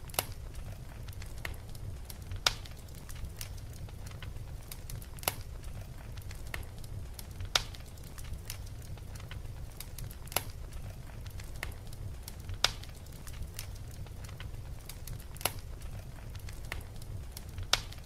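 Fire crackling: a steady run of small crackles with a louder pop every two to three seconds, over a low rumble.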